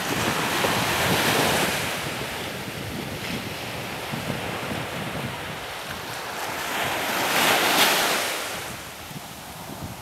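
Small surf washing onto a sandy beach, swelling about a second in and again, louder, about two seconds before the end, over a steady low rumble of wind on the microphone.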